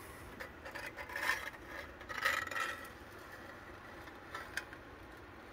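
Steel rule scraping lightly on flattened sheet steel: a few short, soft scrapes in the first two and a half seconds, then two faint ticks past four seconds.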